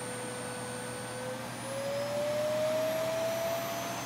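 Soniclean WhisperJet C2 canister vacuum running, its motor giving a steady, jet-like whine. The whine climbs in pitch about a second and a half in and gets a little louder, then holds.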